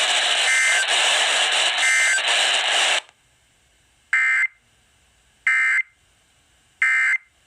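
Loud radio static hiss for about three seconds that cuts off abruptly. Then come three short, identical bursts of Emergency Alert System SAME data tones, a warbling two-tone modem squeal, each about half a second long and about 1.3 s apart. They are the end-of-message code that closes the warning.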